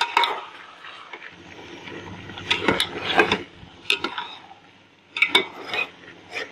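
Metal spoon stirring part-cooked rice in a metal cooking pot, scraping through the rice and knocking against the pot in a few short clusters of clicks.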